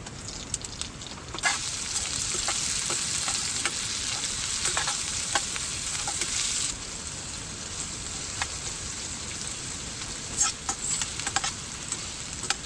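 Tadka being made: cumin, coriander and chopped onion hitting hot oil in a pan and sizzling, loud from about a second and a half in and settling to a lower sizzle a little past halfway. Scattered clicks of stirring run through it.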